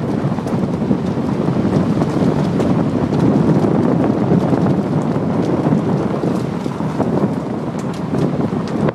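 Wind buffeting the microphone of a car moving along a dirt road, with a steady rumble of tyres on the dirt beneath it and a few faint ticks.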